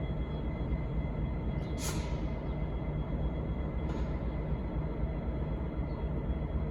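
V/Line N class diesel locomotive idling with a steady low rumble. A sharp hiss of air sounds about two seconds in, and a shorter, fainter one about two seconds later.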